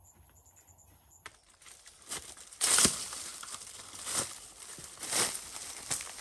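Faint insect chirping, then, after a cut about a second in, a hand hoe chopping and scraping into a hard earth bank: about five sharp strikes with leaves and brush rustling between them.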